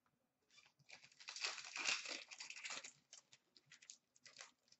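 Plastic hockey card pack wrapper crinkling as it is torn open and handled. The crackling is densest between about one and three seconds in, then comes in short scattered bursts.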